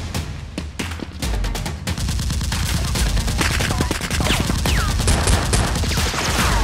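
Gunfire sound effects with background music underneath: scattered shots, then a dense rapid volley from about two seconds in.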